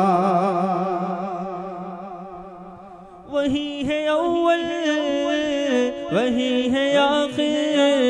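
Unaccompanied devotional singing (a naat) through a PA's echo effect. A held, wavering sung note dies away over the first three seconds, then a new phrase begins and its echo repeats trail behind it.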